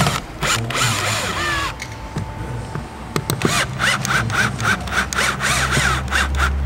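Handling clicks, then a cordless drill-driver running from about halfway, driving the screws that hold a coaxial speaker into the door card. A short squeak repeats about three times a second while it turns.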